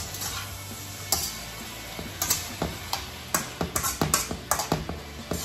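Metal slotted spatula clinking and scraping against a wok as pork belly and vegetables are stir-fried, a dozen or so irregular strikes that come faster in the second half, over a steady frying sizzle.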